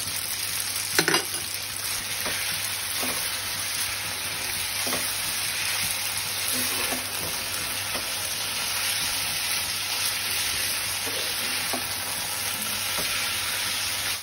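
Chicken chow mein noodles sizzling in a hot frying pan as they are tossed and stirred with tongs, the sauce paste just added, with a few light knocks of the tongs against the pan, the loudest about a second in.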